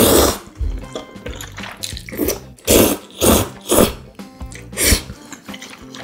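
Jjapaguri noodles being slurped up off chopsticks in about six short, loud, wet slurps, the last of them near the end, with chewing and mouth noise between.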